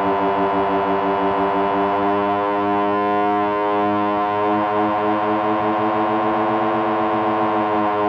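A sustained synthesizer drone: a dense chord of held tones with a slight waver, at a steady level without rising or falling.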